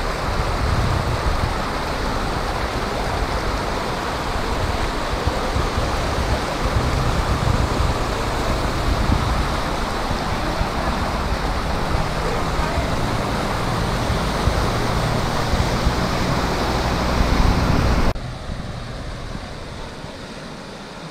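Floodwater rushing across a street in a steady, loud wash, with wind buffeting the phone's microphone. About 18 s in it drops suddenly to a quieter wash.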